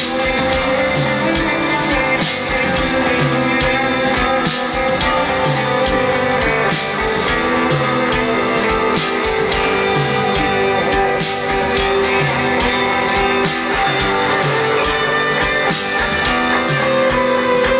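Live rock band playing an instrumental passage with no singing, the electric guitar to the fore over a repeating bass line, heard from the audience.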